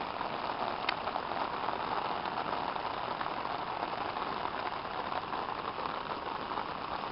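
Heavy rain falling in a steady downpour, with one sharp click about a second in.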